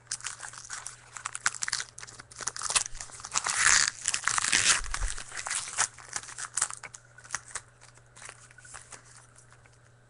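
A trading-card pack wrapper being torn open and crinkled by hand, a dense crackling and tearing that is loudest midway, then trailing off into a few light clicks and rustles as the cards are handled.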